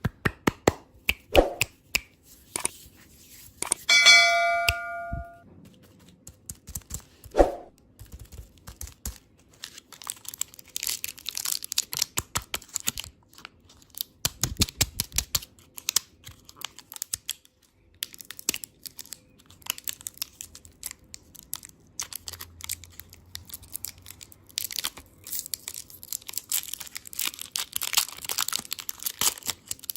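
Close-miked ASMR handling of candy and its packaging: crinkling and tearing of wrappers amid many sharp clicks and taps, turning into dense crackling from about ten seconds in. About four seconds in, a short ringing ding sounds, like a tap on glass or metal.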